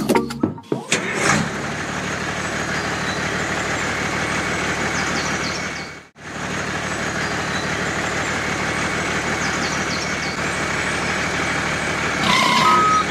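Dubbed truck engine sound effect starting up and then running steadily, with a brief break about six seconds in. Near the end a short hiss, then the first of a series of evenly spaced reversing beeps.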